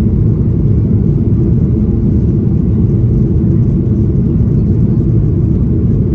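Steady low roar inside the cabin of a Boeing 737-800 in flight, from its CFM56-7B engines and the air rushing past the fuselage, heard from a window seat over the wing.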